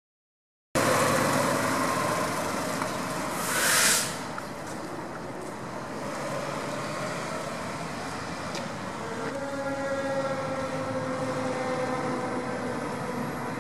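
A Pierce Velocity fire engine running as it pulls away. The sound cuts in abruptly less than a second in. About three seconds in comes the loudest moment, a short burst of air hiss typical of an air brake release. Later a steady humming tone with several pitches sets in and slowly sinks.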